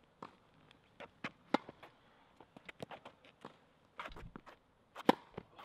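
Tennis racket striking the ball: two sharp hits about three and a half seconds apart, with many fainter taps and clicks between them.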